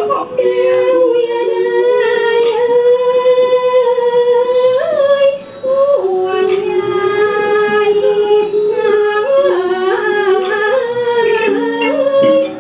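A woman singing in the Thai classical style for a puppet drama: long drawn-out notes that slide and waver between pitches, with a short break about five and a half seconds in.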